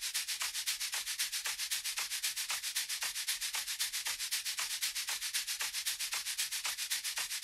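Fast, even pulses of filtered hissing noise, about ten a second with almost no bass: a synthesized hi-hat or noise pattern in an electronic techno track.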